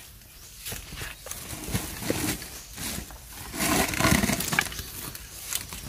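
Dry leaves and plant litter rustling and crackling, with scattered knocks, as a bamboo tube trap is worked into a land crab burrow. The handling is busiest about four seconds in.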